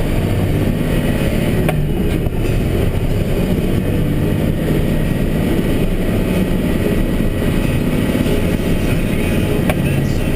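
Diesel engine of a 2012 Mack Granite plow truck running steadily under load, heard from inside the cab, with two brief clicks about two seconds in and near the end.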